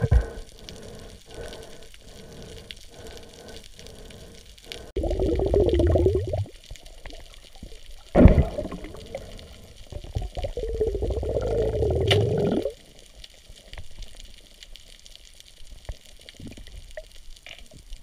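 Underwater water noise around the camera on a night dive. A few soft knocks come first. About five seconds in there is a burst of rushing, bubbling water, then a sharp knock, then a longer rush of water that cuts off about halfway through.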